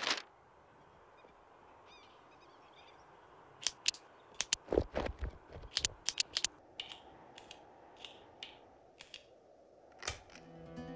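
A scatter of short, sharp clicks and scratches of paper and a pen being handled, busiest in the middle, over a low background hiss. Guitar music begins right at the end.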